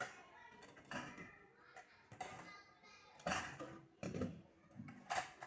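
Dishes being washed by hand: glass bowls and containers knocking and clinking against a plastic basin and a stainless steel sink, a series of separate clatters a second or so apart.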